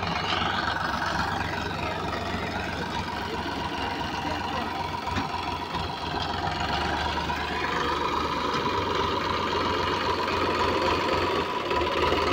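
Massey Ferguson DI tractor's diesel engine running steadily while it pulls a trolley loaded with paddy straw, growing a little louder in the second half as it comes closer.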